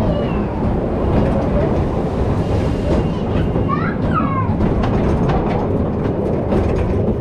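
Side-friction wooden roller coaster train rolling along its track: a steady low rumble with a run of clicks from the wheels.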